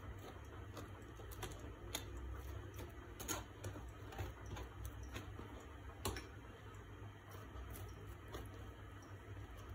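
A table knife spreading mustard and mayonnaise along a split, buttered baguette: faint scraping with small irregular clicks as the blade catches the crumb and crust.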